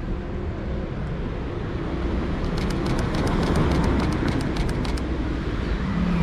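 Canon 77D DSLR shutter firing a continuous burst, about six clicks a second for roughly two and a half seconds, starting about two and a half seconds in. It is heard over the steady rumble of passing street traffic.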